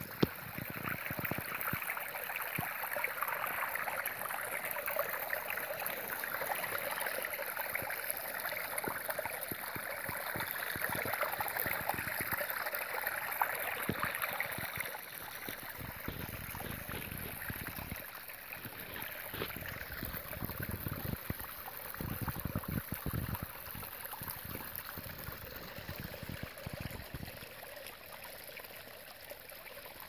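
Small brook running beneath snow cover, a steady trickling and gurgling of water through openings in the snow. There is a sharp click just after the start, and irregular low rumbling gusts in the second half.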